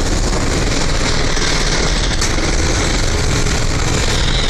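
Loud, steady rushing noise with a deep rumble underneath, heard from a ship's open deck as another ship moves close alongside; no single knock or impact stands out.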